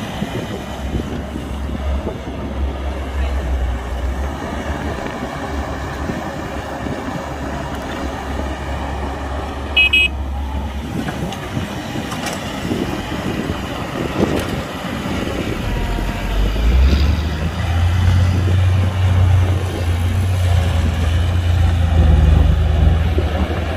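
Diesel engines of a CAT 312 excavator and a Hyundai dump truck running at a worksite, with a short horn toot about ten seconds in. From about sixteen seconds the low engine drone grows louder and heavier, as an engine works harder.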